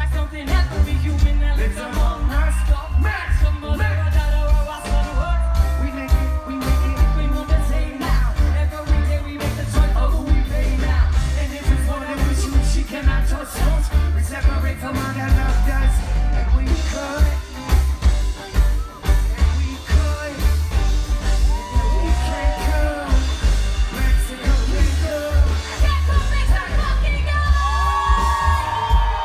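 A live reggae-rock band playing loudly with singing, electric guitars, keyboards and drums over a heavy, steady bass.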